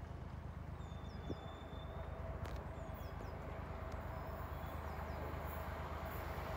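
Distant approach of an eight-car Class 317 electric multiple unit: a low steady rumble, with a faint steady hum that comes in about two seconds in and slowly grows louder. Birds chirp briefly a couple of times.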